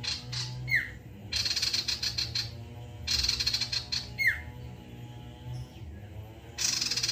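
Male sirtu, a kind of iora, calling in bursts of rapid rattling chatter every couple of seconds, two of them followed by a sharp downward-sliding whistle. A steady low hum runs underneath.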